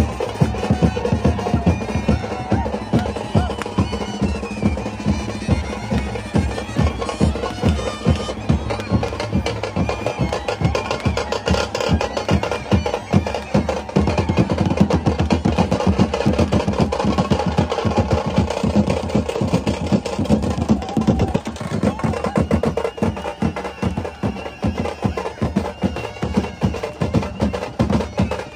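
Brass band music: drums beating a fast, dense rhythm under held horn notes carrying the tune.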